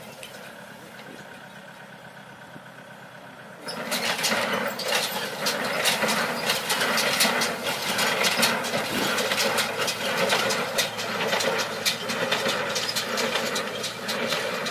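A tractor's engine runs quietly, then the sound jumps up loudly about four seconds in to a steady, clattering machine racket full of rapid ticks and rattles.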